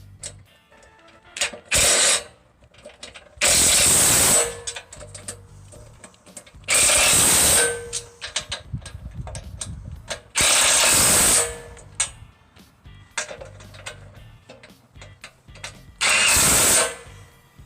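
A power tool driving the sawmill track bolts tight in five loud bursts of about a second each, with light metal clicks and clanks between them.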